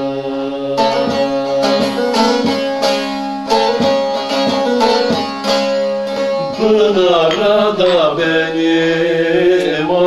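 Two bağlamas (long-necked Turkish saz) played together in a Turkish folk song, rapid plucked and strummed notes over a steady drone. About seven seconds in, a man's singing voice comes back in over the instruments.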